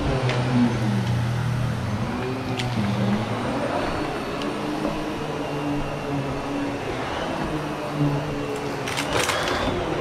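Vacuum cleaner running steadily, its motor hum wavering in pitch; a brief clatter of sharp clicks about nine seconds in.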